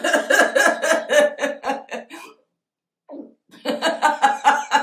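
A woman laughing heartily and loudly in quick, rhythmic bursts, with a brief break about two and a half seconds in before it starts again. It is put-on laughter for a laughter yoga exercise, pushed to its fullest tone.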